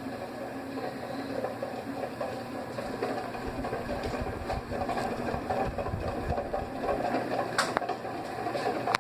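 Tron Ipanema ceiling fan running with a steady motor hum and whir. A sharp click sounds near the end.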